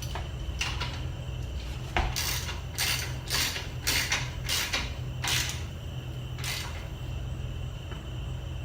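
Hand tools working on the rear axle nut and wheel hardware of a motorcycle as it is tightened: a string of irregular metallic clinks and short scrapes, busiest from about two to five and a half seconds in.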